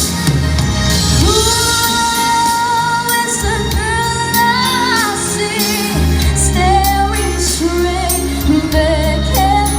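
Pop ballad backing track with a woman singing long held notes and vocal runs; a steady bass line comes in about six seconds in.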